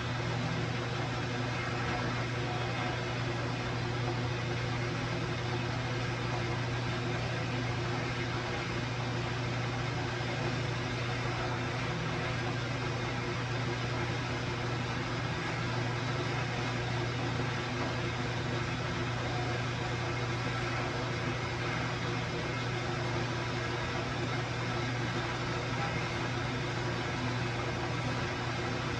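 Bandsaw running steadily while cutting steel, with a constant low motor hum under an even noise.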